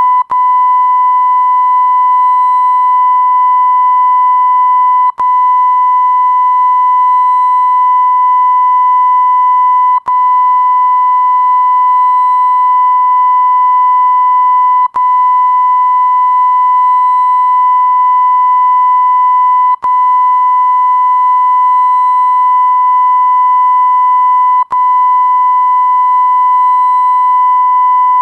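Censor-style beep sound effect: one steady, loud, high-pitched beep tone held continuously, breaking off for an instant with a click about every five seconds.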